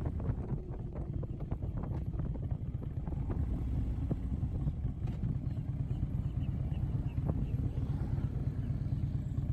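Harley-Davidson motorcycle engine running steadily under way, a continuous low engine note.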